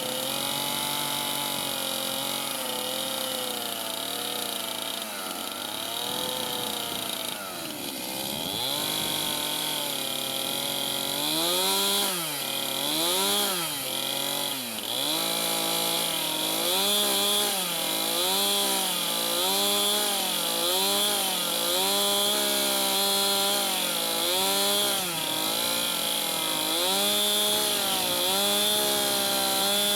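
Chainsaw running as it cuts along a scribe line in a log, its engine pitch wavering under load. About eleven seconds in it dips deeply three times, then rises and falls regularly about once a second.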